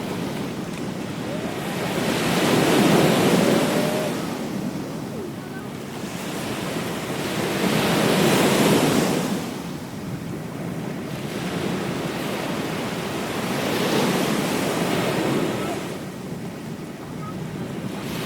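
Ocean surf breaking on a beach, the wash of each wave swelling and fading away three times, about every five to six seconds.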